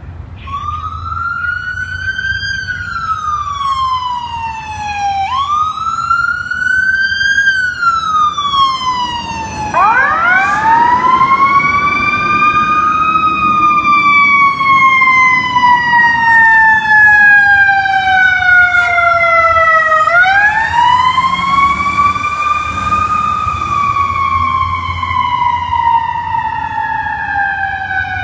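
Fire engine siren wailing, its pitch rising and falling about every five seconds, then from about ten seconds in switching to longer, slower sweeps and getting much louder as the truck comes near. A low engine rumble runs under the siren.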